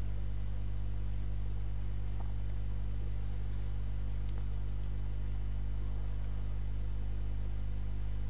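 Steady low electrical hum with faint hiss, with a faint click about four seconds in.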